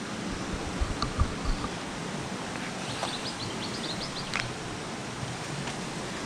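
Mountain stream running steadily over rocks, a constant rushing hiss. A few low knocks come about a second in, and a quick run of short high chirps around three seconds in.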